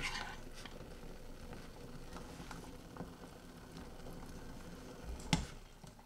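Tomato sauce sizzling faintly in a stainless steel pan as boiled green beans are tipped in from a skimmer, with a few small clicks and a sharper knock about five seconds in.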